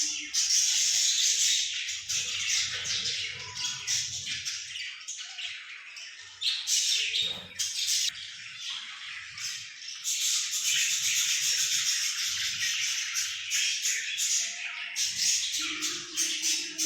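A young green parrot squawking in harsh, raspy calls, with background music.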